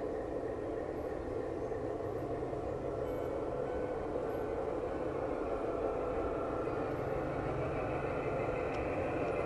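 G-scale model train running on the garden track: a steady mechanical hum that grows slowly louder, with a faint whine coming in during the second half.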